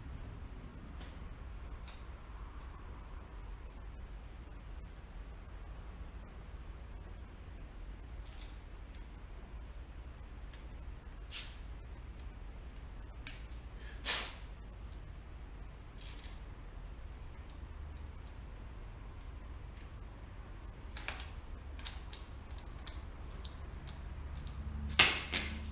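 A cricket chirping steadily, about two chirps a second, under a low hum, with a few sharp knocks of tools and bicycle parts being handled. Near the end a loud clatter of a dropped tool.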